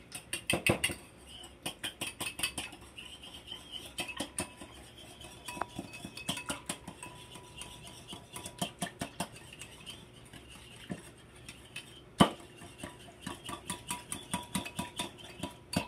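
Wire whisk beating egg and milk in a ceramic bowl: quick, uneven clinks and taps of the metal wires against the bowl, with one sharper knock about twelve seconds in.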